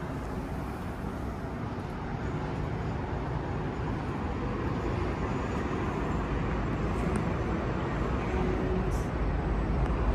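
Steady outdoor rumble of wind and distant city traffic on a high-rise balcony, slowly growing louder toward the end.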